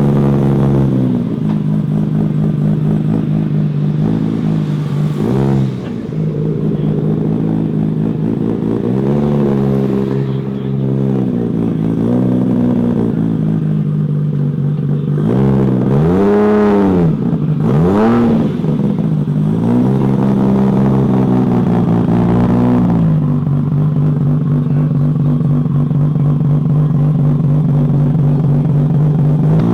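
Car engine idling with a series of throttle blips. The two biggest revs come about halfway through, after which it settles into a steady idle.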